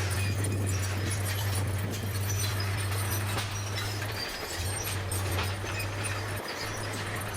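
Bulldozer at work: a steady low engine drone that dips out briefly twice, with irregular clattering and scraping from the tracks and blade on earth and stones over it.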